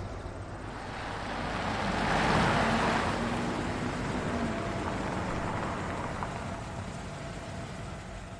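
A minivan driving past: its road and engine noise swells to a peak about two and a half seconds in, then fades slowly.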